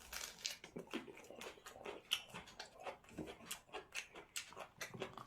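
Faint chewing and mouth sounds of someone eating: soft, irregular wet clicks and smacks, several a second.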